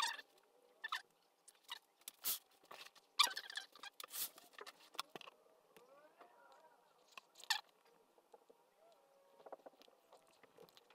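Faint, scattered clicks and small taps at irregular intervals, a few seconds apart, over quiet room tone.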